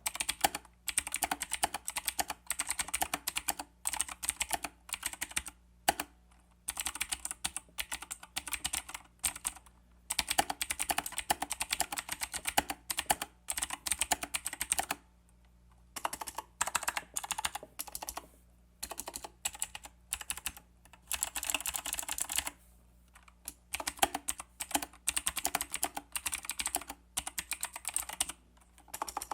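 Typing on a Royal Kludge G87 mechanical keyboard with clicky RK Blue switches: fast runs of sharp key clicks in bursts of a few seconds, broken by short pauses.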